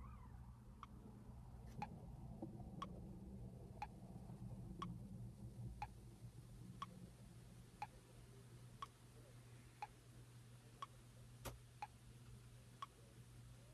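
Clock ticking faintly and evenly, one tick a second, over a low steady hum, with one sharper click about eleven seconds in.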